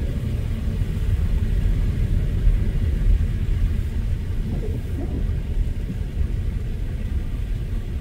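A car being driven, its engine and road noise making a steady low rumble.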